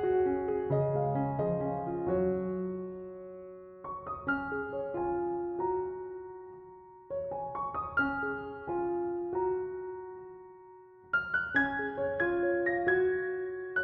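Background music: a gentle piano melody, played in phrases of struck notes that fade away before the next phrase begins.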